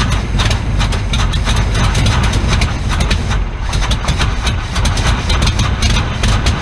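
Ford 390 V8 in a 1974 F-350 wrecker running unevenly just after catching on its first start in years, its uneven firing heard as irregular knocks, while fuel is sprayed into the carburettor to keep it going.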